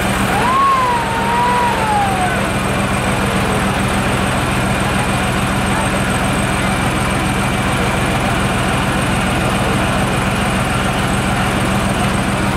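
Steady low hum of an idling vehicle engine with street noise around it. About half a second in, a short high sound rises, wavers and falls away over about two seconds.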